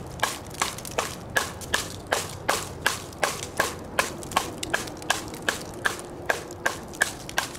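A TOPS Brothers of Bushcraft fixed-blade knife with a 1095 high-carbon steel blade chopping into a small log: a steady run of sharp chops, a little under three a second.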